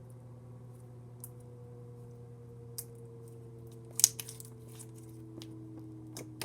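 Clear glitter slime being squeezed and stretched by hand, giving a few scattered clicks and pops, the loudest about four seconds in, over a steady low hum.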